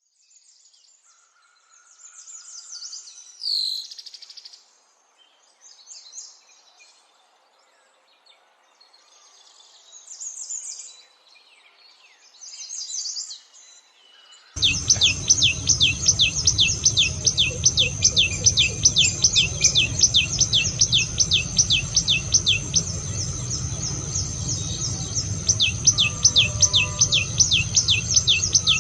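Wild songbirds chirping and singing short high phrases, separated by quiet gaps. About halfway through, a much louder continuous sound starts suddenly: a rapid, evenly repeated high trill over a steady high-pitched tone and a low rumble.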